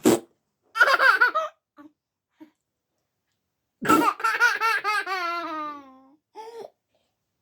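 Toddler laughing: a short burst of giggles about a second in, then a longer belly laugh starting about four seconds in that slides down in pitch as it trails off.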